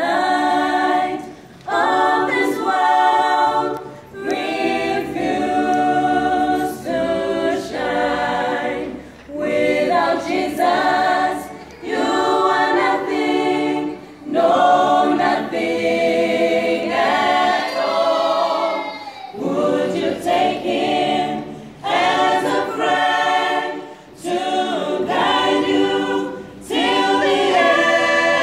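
Mixed choir of women's and men's voices singing a gospel song a cappella in harmony. The singing comes in short phrases with brief breaks between them.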